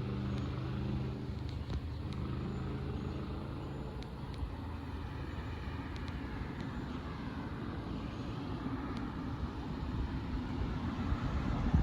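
Vehicle engine rumble: a steady engine hum fades over the first few seconds, then a broad rumble slowly builds toward the end.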